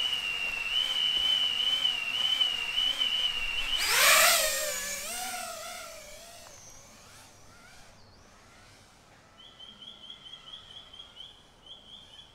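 Small 3.5-inch FPV quadcopter's brushless motors and props whining steadily at idle, then throttling up hard about four seconds in as it takes off, the whine sweeping and wavering in pitch as it flies away and fades. Near the end a faint chirp repeats a few times a second.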